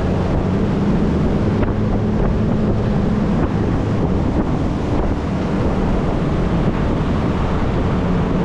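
A motorboat's engine running steadily under way, a constant low hum, with wind rushing over the microphone.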